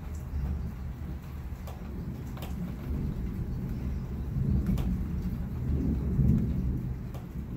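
Thunder rumbling: a low roll that builds and is loudest about five to six seconds in, with a few faint scattered ticks.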